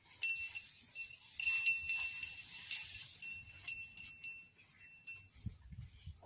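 Small metal bell jingling in irregular strikes, a ringing tone struck over and over for the first few seconds and then dying away. A few soft low thuds come near the end.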